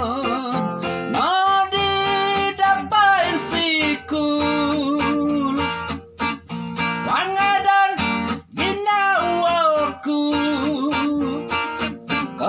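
A man singing with several long held notes, accompanying himself on a strummed acoustic guitar.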